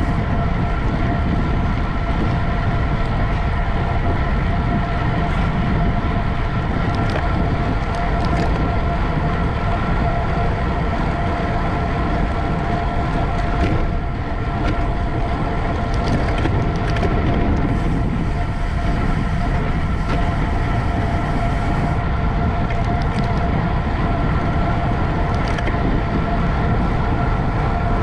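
Wind rushing over the microphone and road rumble from a road bicycle racing at speed, with a steady whir and a few light clicks.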